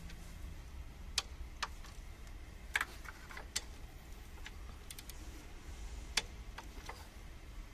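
Ratchet head of a click-type torque wrench clicking as the intake manifold bolts are run down: a handful of sharp single clicks at uneven intervals over a low steady hum.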